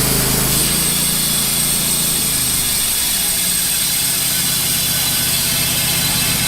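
Wood-Mizer LT15 band sawmill running, its engine driving the band blade through a maple log. The engine note changes about two and a half seconds in.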